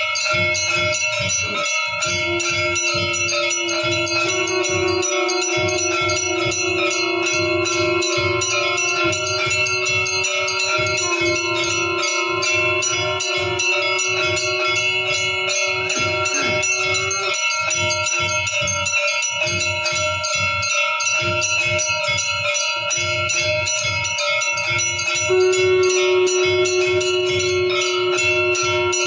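Temple aarti bells ringing rapidly and without a break, a dense stream of metallic strikes over steady ringing tones. A lower held tone sounds under them from about four seconds in and comes back louder near the end.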